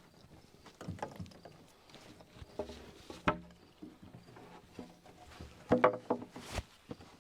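Irregular knocks and clunks of tools and materials being handled, a few ringing briefly; a sharp knock comes about three seconds in and a louder cluster near the end.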